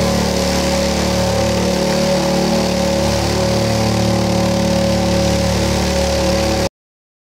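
Loudspeaker under a cornflour-and-water slurry driven with a loud, steady low buzz with many overtones, the fluid on its cone jumping and spattering. The sound cuts out suddenly near the end.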